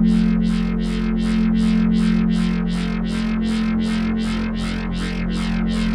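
Synthesized sonification music: sustained low drone tones held across octaves, with inharmonic, edgy beats pulsing evenly about three times a second on top.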